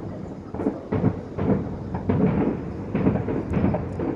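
Distant fireworks going off in quick succession: a run of dull booms, about two a second, each one trailing away.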